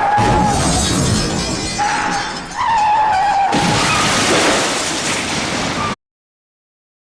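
Car crash sound effect: a tyre screech ends in a heavy crash, then a second tyre screech and crunching impact follow, and the sound cuts off suddenly about six seconds in.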